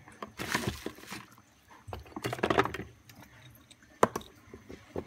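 Rustling and handling noise from hands working over a disassembled smartphone and its parts on a workbench, in two short stretches, then a sharp click about four seconds in and a few light ticks near the end.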